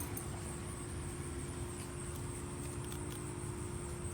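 Steady low background rumble with a faint continuous high-pitched hum and a few faint ticks.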